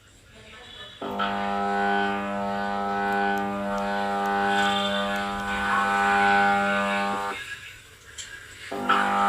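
Samsung top-load washing machine motor humming steadily with one fixed pitch while barely turning the drum in spin mode. It cuts off for about a second and a half near the end, then comes back on. This is the machine's fault of humming and not spinning properly.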